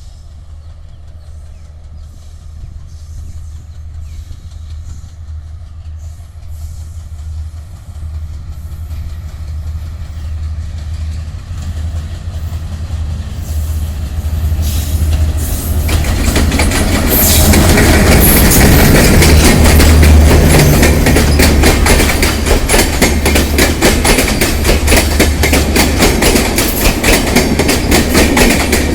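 Moitree Express passenger train approaching, its low engine rumble growing steadily louder, then passing close from about halfway through with a loud rush of noise and rapid wheel clatter over the rail joints.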